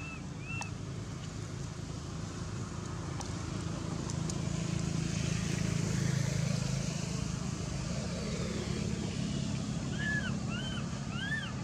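Low rumble of a passing motor vehicle, swelling to a peak midway and easing off. Short, high, arched calls sound twice at the start and three times near the end.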